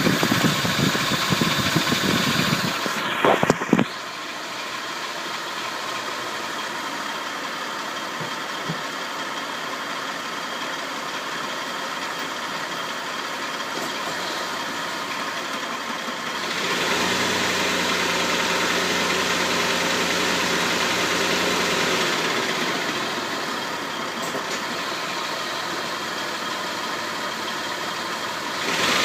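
A 2000 Toyota 4Runner's 3.4 L V6 idling steadily, with a few knocks in the first few seconds. About two-thirds of the way through, the engine runs louder and deeper for several seconds while it is put in gear under light load, then settles back to idle.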